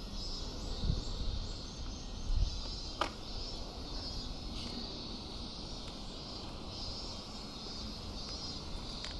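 Outdoor ambience: wind rumbling on the microphone in irregular gusts over a steady high-pitched hiss, with one sharp click about three seconds in.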